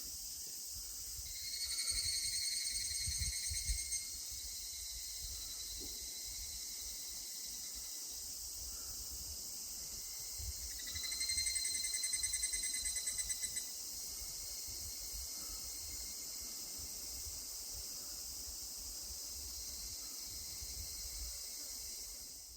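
Higurashi (evening cicada, Tanna japonensis) calling twice, each a pulsing, ringing 'kana-kana-kana' trill of two to three seconds that sinks slightly in pitch, over a steady high hiss of insects.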